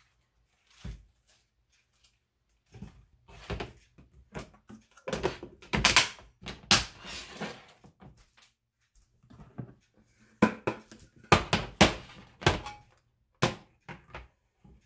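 Handling sounds of glass food-storage dishes: lettuce leaves rustling as they are packed in, and knocks and clicks as the plastic lid goes on and the glass dishes are moved on a glass cooktop. They come in two irregular clusters with a lull between.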